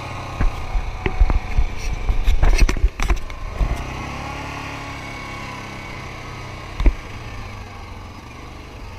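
ATV (four-wheeler) engine running steadily while it is ridden. A burst of knocks and clatter comes between about half a second and three and a half seconds in, and a single sharp knock near seven seconds.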